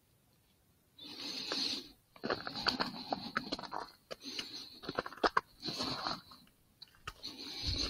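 A beaver's close, crunchy noises in about five bursts, beginning about a second in, with sharp clicks and a hiss through them, as of gnawing and chewing.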